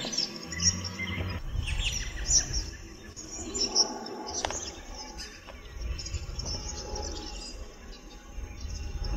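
A large flock of small birds, which the uploader calls swifts, chirping and twittering in many overlapping high calls as they settle into bushes, over a low rumble.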